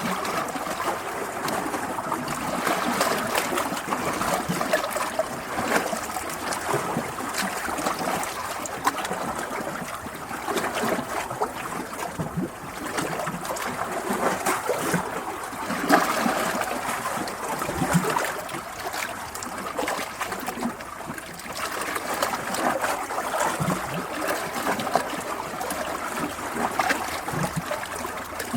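Running water trickling and splashing steadily, a small stream's continuous flow that swells and ebbs in loudness every few seconds.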